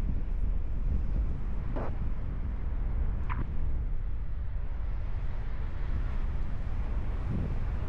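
Wind buffeting the microphone in flight under a paraglider: a steady low rumble.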